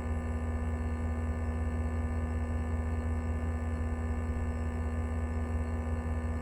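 Steady electrical hum of a public-address loudspeaker system with no voice on it: a low drone with a clearer, higher steady tone above it.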